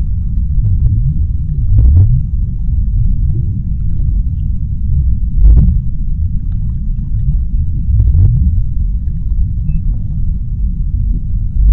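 Deep-sea underwater ambience: a steady, deep rumble with a few short crackles scattered through it.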